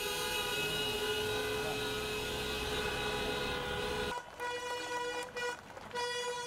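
Vehicle horns honking in street traffic: one long steady blast held for about four seconds, then after an abrupt break a run of shorter on-off honks at the same pitch.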